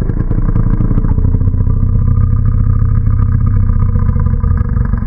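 Monster growl sound effect made from a cow-noise sample pitched down 70%, slowed to half speed, given a sine tremolo at 8 pulses a second and compressed: a loud, low, rumbling growl with a fast flutter that eases off a little near the end.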